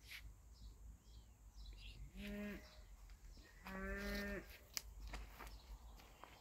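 A cow mooing twice: two short calls held on one pitch, the second a little longer, about a second apart.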